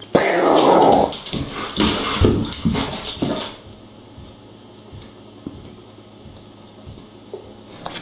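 German shepherd whining and growling for about three and a half seconds, then stops.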